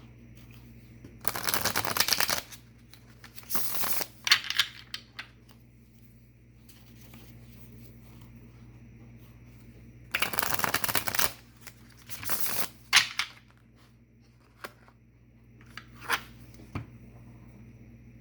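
Tarot cards being shuffled: two quick riffles about a second long, one near the start and one about halfway through, with shorter flicks and single snaps of the cards in between.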